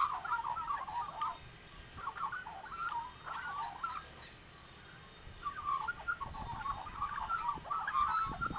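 Australian magpies carolling: several birds' overlapping warbling song, which dips into a short lull about four seconds in before picking up again.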